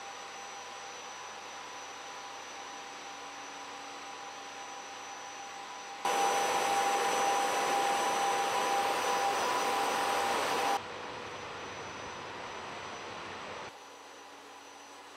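Steady mechanical drone and hiss with a few faint steady tones, louder from about six seconds in and stepping down abruptly twice near the end.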